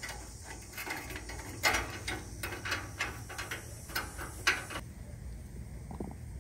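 Irregular metallic clicks and clinks of a U-bolt exhaust clamp and its bracket being fitted by hand around a new exhaust pipe. The clicks stop about five seconds in.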